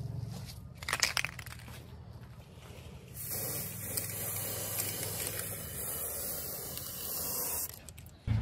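Aerosol spray-paint can spraying with a steady hiss, starting about three seconds in and stopping suddenly near the end. A short, loud clatter comes about a second in.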